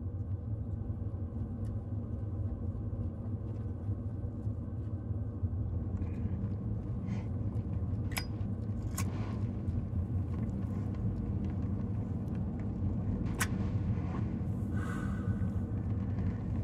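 Steady low rumble of a car driving, heard from inside the cabin, fading in at the start, with a few sharp clicks around the middle.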